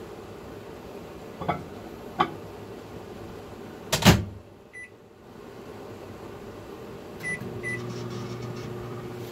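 Electric kitchen appliance humming, with two light clicks and then a loud knock about four seconds in, after which the hum drops away. Short electronic beeps follow, one just before five seconds and two near seven and a half seconds, and then a steadier hum with a low tone starts.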